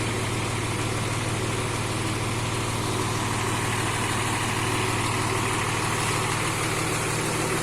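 A bus's diesel engine idling steadily.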